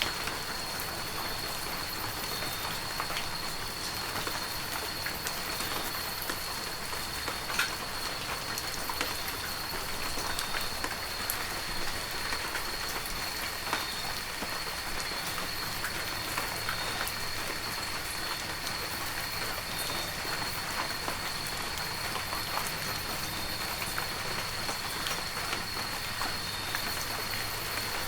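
Heavy rain falling steadily, with many individual drops pattering and one sharper drop hit about a quarter of the way in. A thin, steady high tone runs beneath it.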